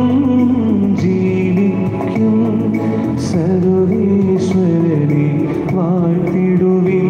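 Liturgical hymn singing with instrumental accompaniment, the melody moving in long held notes over steady low tones.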